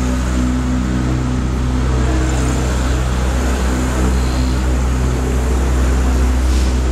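Tour boat's motor running steadily, a constant low hum.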